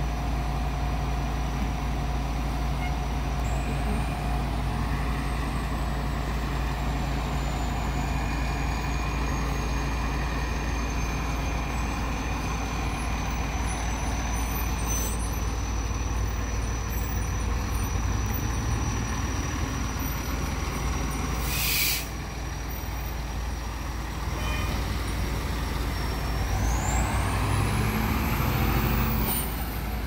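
Diesel fire trucks idling with a steady low drone. A short air-brake hiss comes about two-thirds of the way through. Near the end a truck's engine revs up as it pulls away, with a high whine rising in pitch.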